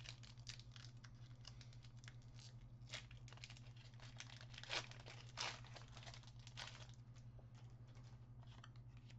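Faint crinkling and tearing of a foil booster-pack wrapper being opened, a handful of soft rustles spread through a quiet stretch.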